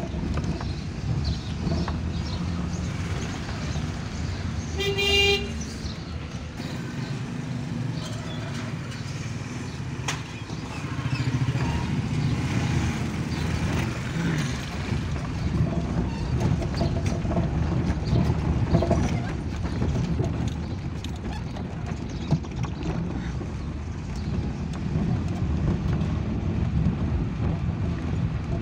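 Suzuki Mehran's small three-cylinder engine and road noise running steadily, heard inside the cabin, with a vehicle horn sounding once, briefly, about five seconds in.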